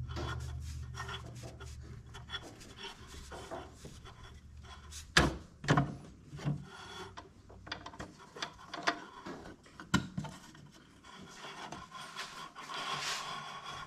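Hands and a braided nylon recoil rope rubbing and scraping against parts in a snowmobile engine bay as the rope is fed up through its guide tube, with a few sharp knocks about five, six and ten seconds in.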